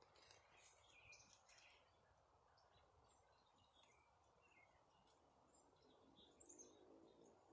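Near silence: faint outdoor hiss with a few faint, scattered bird chirps and some soft clicks in the first couple of seconds.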